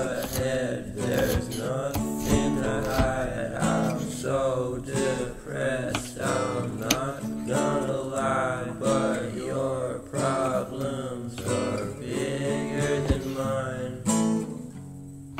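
Background music led by an acoustic guitar.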